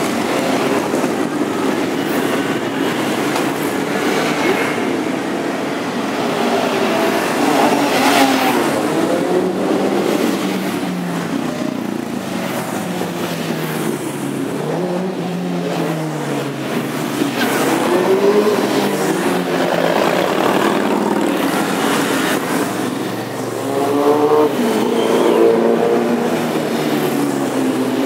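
A column of motorcycles, many of them cruisers, riding past one after another at parade pace. Each engine note rises as it comes near and drops as it goes by, with a louder pass near the end.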